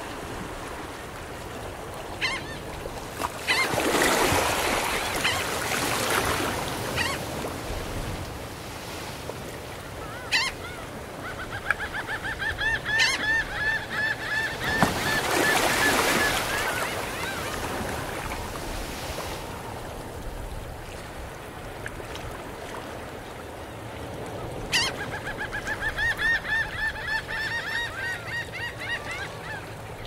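Gentle ocean waves breaking and washing up on a sandy beach, surging twice, with gulls calling over them. The gulls give a few single sharp cries and two long runs of rapid, repeated calls, one at the middle and one near the end.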